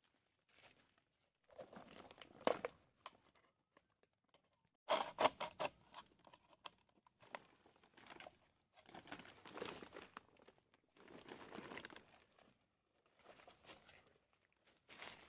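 Feet wading through shallow, muddy water: irregular bursts of splashing and sloshing, with small sharp clicks and knocks in between.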